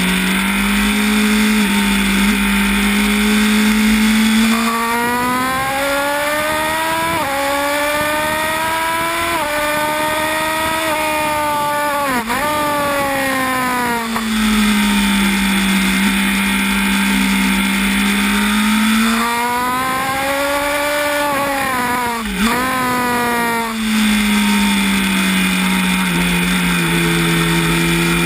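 Onboard sound of a Honda 1000 cc inline-four sportbike engine in a race. Twice it revs hard up through the gears in rising stepped surges, each followed by quick downshifts with short throttle blips under braking. Between these it runs at a steady mid pitch through the corners, over constant wind rush.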